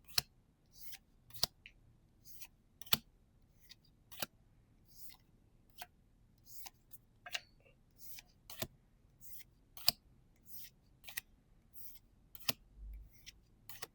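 Pokémon trading cards handled and flipped one by one. Sharp card snaps come about once a second, with soft sliding swishes of card on card between them.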